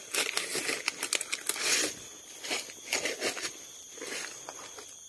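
Leaves and plant stems rustling and crackling as someone pushes through dense brush on foot. The crackles are densest in the first two seconds, then thin out.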